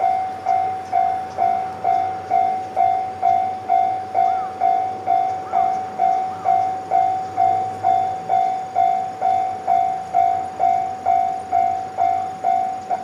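Japanese railway level-crossing warning alarm ringing steadily, with evenly spaced electronic bell strikes about twice a second, signalling that a train is approaching.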